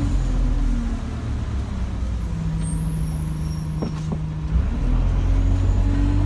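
Alexander Dennis Enviro 200 bus's diesel engine heard from inside the cabin. It drones, falls to a quieter steady hum for a few seconds with a couple of sharp clicks, then picks up again about four and a half seconds in.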